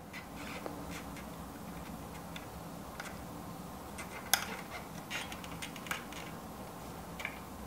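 Faint small plastic clicks and taps as a load cell's Molex connector is worked onto its circuit-board header, the sharpest click about four seconds in.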